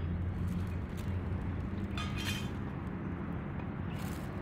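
A few short metallic clinks over a steady low rumble.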